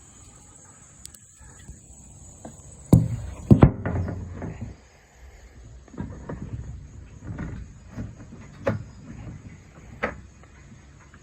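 Handling noises of hand tools on a plastic robot vacuum: two sharp clunks about three seconds in, then scattered taps, clicks and scrapes as a screwdriver and pick work the drive wheel and its O-ring belt into place.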